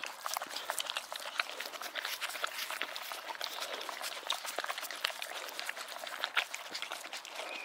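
Boxer dogs licking and smacking at dog ice cream: a rapid, irregular run of wet clicking licks.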